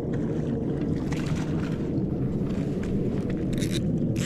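A steady low drone, like a motor running, with a few sharp clicks near the end.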